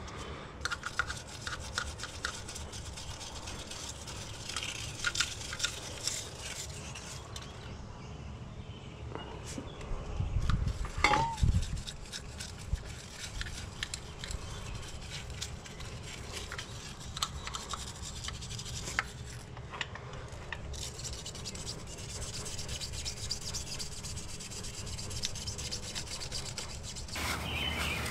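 Small wire gun-cleaning brush scrubbing and scratching inside the metal bore of a throttle body, working gunk loose from the throttle. A few louder knocks about a third of the way through.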